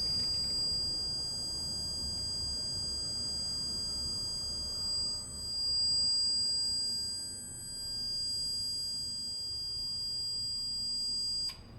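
Zeta Simplicity fire alarm panel's internal buzzer sounding one steady high-pitched tone while the panel runs its loop configuration; it cuts out briefly near the end.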